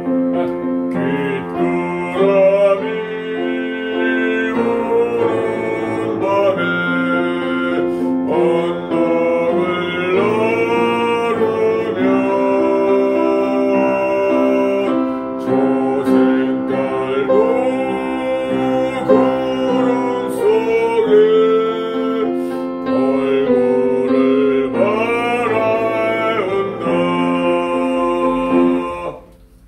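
A man singing in a classical, bel canto style to piano accompaniment. The singing and piano stop just before the end.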